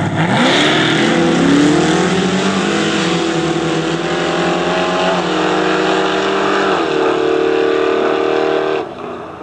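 Two street-race cars launching from a standing start and accelerating hard away, engines revving up. The engine pitch drops and climbs again several times as they shift through the gears, then the sound cuts off abruptly near the end.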